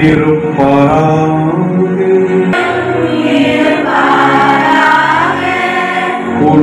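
A choir singing a hymn together, the voices holding long sustained notes.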